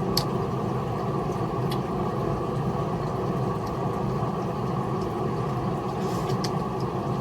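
A steady low motor drone with a few faint, sharp clicks over it.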